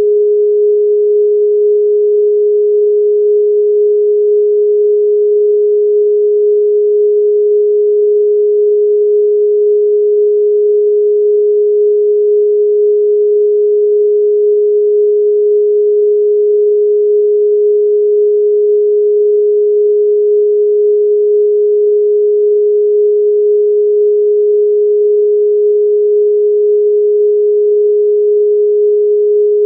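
A single electronically generated pure tone, a little under 500 Hz, held perfectly steady at one pitch and volume: a sound-healing 'frequency' meditation tone.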